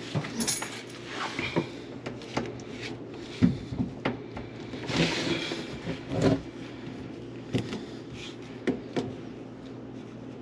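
White plastic sink drain parts being handled and fitted by hand as a P-trap is reassembled: scattered light plastic clicks and knocks, with a longer rubbing scrape about five seconds in, over a low steady hum.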